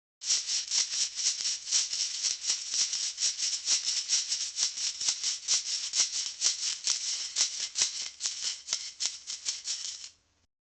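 Wasabi being grated in quick, even strokes: a rhythmic high scraping at about four strokes a second, which stops shortly before the end.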